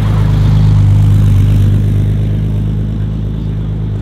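Car engine running steadily at low revs, a deep even note with no rise or fall in pitch, slightly louder in the first second or two.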